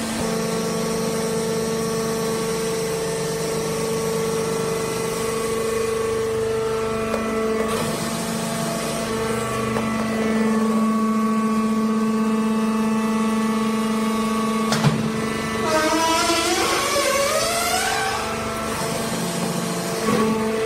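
Hydraulic sawdust baling press running: the steady hum of its motor-driven hydraulic pump. About fifteen seconds in there is a sharp knock, followed by a wavering, rising whine lasting a couple of seconds.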